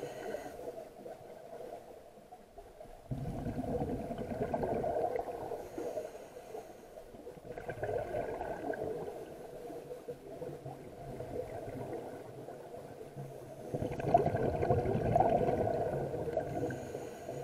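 Scuba diver breathing underwater through a regulator: three gurgling bursts of exhaled bubbles several seconds apart, with short hissing inhalations between them.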